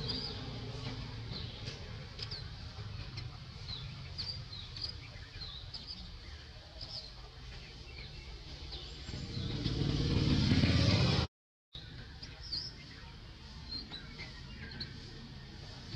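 Small birds chirping repeatedly over a steady low rumble of road traffic. A motor vehicle grows louder from about nine seconds in, then the sound cuts out abruptly for a moment.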